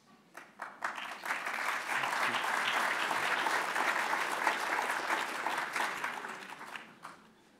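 Audience applauding: a few scattered claps at first, quickly building into steady applause that fades away near the end.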